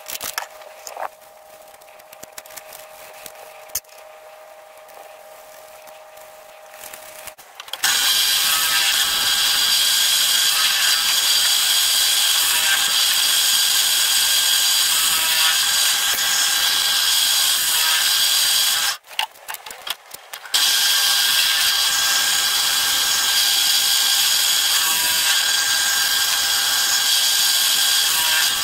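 Benchtop drill press running while drilling through a thin brass plate: a steady sound with a high whine. It starts about a quarter of the way in after some quiet handling clicks, and stops briefly about two-thirds of the way through.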